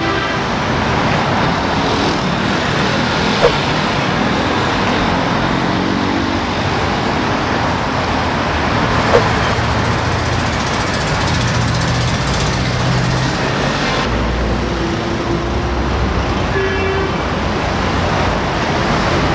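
Steady road traffic noise from a busy city street, vehicles running past, with two short sharp clicks.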